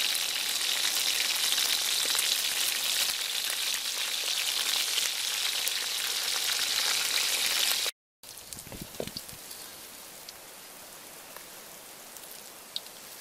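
Whole crabs deep-frying in hot oil in a metal wok: a steady, loud crackling sizzle. It cuts off abruptly about eight seconds in, leaving a much quieter outdoor background with a few soft knocks.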